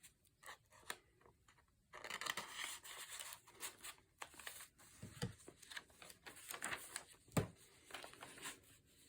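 Paper pages and card of a handmade junk journal rustling and sliding as they are handled and turned, starting about two seconds in, with two soft thumps in the second half.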